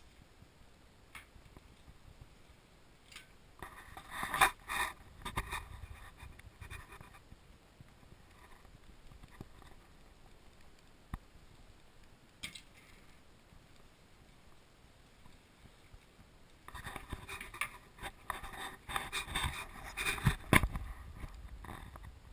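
Scraping and knocking handling noises from a handheld camera being carried through a static caravan, in two bouts: about four to seven seconds in, and again from about seventeen seconds to near the end. Between the bouts there are only a few faint isolated clicks.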